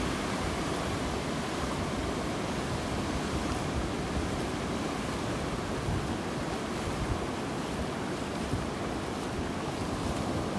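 Sea surf washing up a sandy beach, a steady rush of waves.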